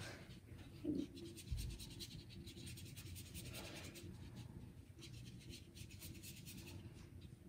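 Faint strokes of small round watercolour brushes on thick paper, in soft bursts as paint is brushed on. A brief low knock comes about one and a half seconds in.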